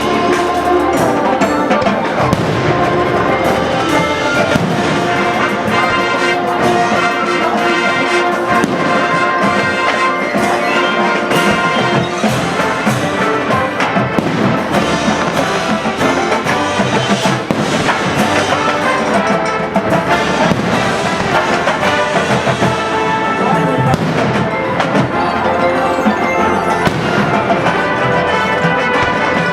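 Brass and percussion music playing over a fireworks display, with frequent bangs and crackles of fireworks throughout.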